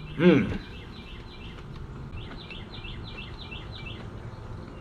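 A songbird singing a rapid series of short down-slurred chirps, about four or five a second, over steady outdoor background noise. A man gives a brief voiced "mm" just after the start.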